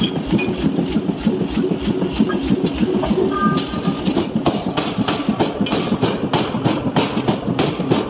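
Forging hammer machinery running, with a steady low rumble and a rapid rhythmic knocking of about three knocks a second that grows more distinct after the middle.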